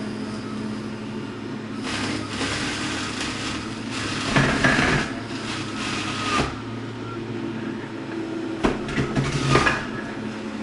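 Breville centrifugal juicer motor running on its low speed with a steady hum. It grinds louder as produce is pushed down the feed chute onto the spinning cutter, first for a few seconds starting about two seconds in and again briefly near the end.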